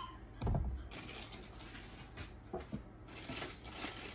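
A low thump about half a second in, then a few small knocks and, from about three seconds in, rustling as hands rummage through a plastic bin of rubber dog toys and treat packets.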